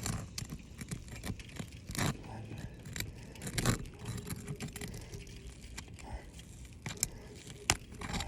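Scattered sharp clicks and short scrapes of hand tools working asphalt roof shingles loose, breaking their sealant bonds.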